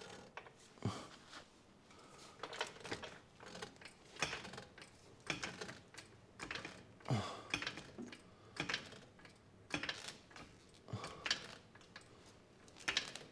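Hand ratchet wrench clicking in short strokes, about a dozen bursts roughly a second apart, as a suspension nut is tightened.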